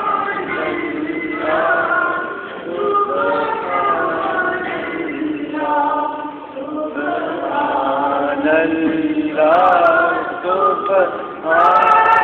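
A young boy singing a naat unaccompanied, into a microphone. It is Islamic devotional chant, sung in phrases with long, wavering held notes.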